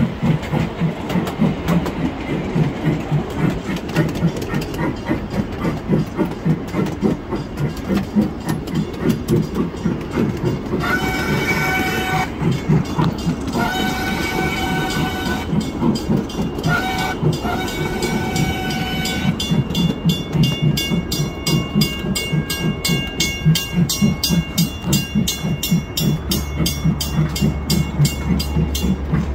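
Ride-on miniature train running on its track, its wheels clicking over the rail joints in a steady rhythm. About halfway through, its horn sounds the long, long, short, long crossing signal. A crossing bell then rings in quick, even strokes until the end.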